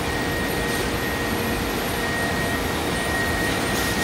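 Steady running noise of a fruit packing line's machinery (powered roller conveyors and large fans), with a steady high whine running through it.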